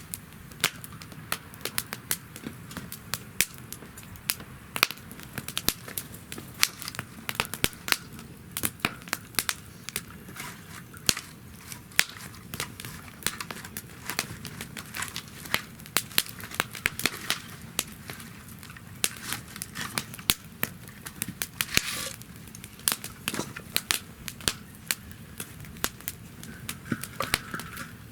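Wood campfire burning in a fire stand, crackling with frequent sharp pops over a low steady rumble of the flames. A louder flurry of crackles comes about 22 seconds in.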